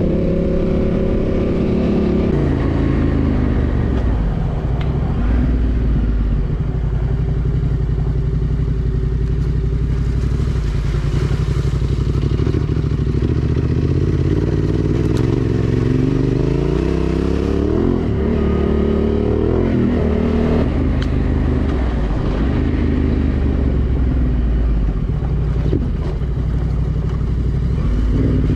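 Yamaha Ténéré 700's parallel-twin engine running under way. Its note rises and falls with the throttle and climbs in several quick sweeps through the gears a little past the middle, over a steady rush of wind noise.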